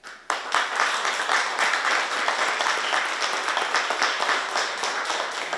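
A small group of people applauding, breaking out suddenly just after the start and keeping on steadily.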